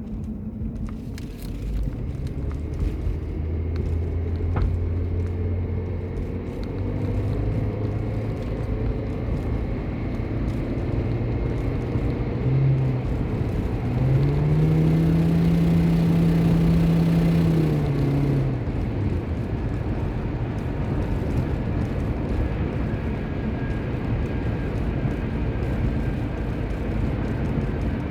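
2007 Toyota Prius's 1.5-litre four-cylinder petrol engine running with road noise, its pitch climbing about twelve seconds in, holding high and loudest for a few seconds, then dropping back. This is the hard-acceleration fluttering from the engine bay that the owner thinks sounds like an exhaust leak.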